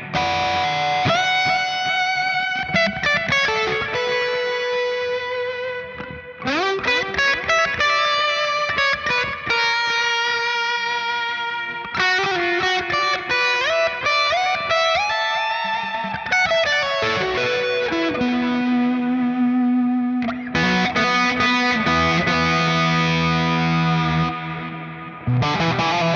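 Electric guitar played through the GFI System Orca delay pedal, in phrases of notes with some sliding or bending up in pitch, with a slightly overdriven tone.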